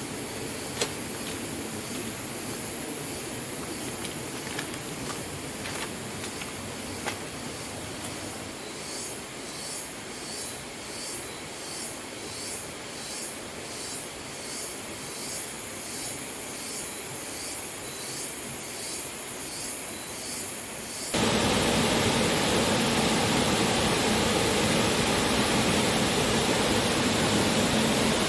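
Forest background hiss with a few sharp clicks, joined partway in by an insect calling in a high, even pulse about one and a half times a second. About three quarters of the way through it cuts abruptly to the loud, steady rush of a waterfall.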